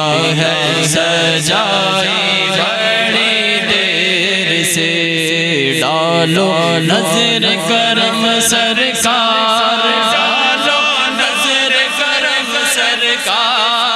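A naat being sung: a voice holding and bending long melodic notes of a devotional refrain, over a steady low hum.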